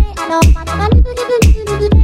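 Background electronic dance music with a steady kick drum beat, about two beats a second, under a melodic synth line.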